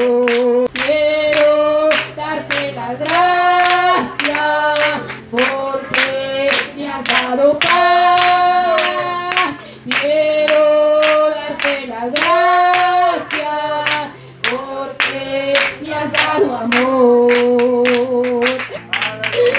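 Church congregation singing a Spanish-language chorus, led by a woman's amplified voice holding long notes, with steady hand clapping a little more than twice a second.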